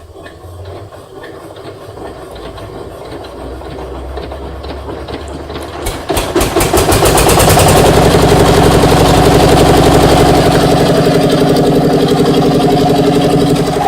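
An engine rumbles low, then about six seconds in starts up and runs loud and steady.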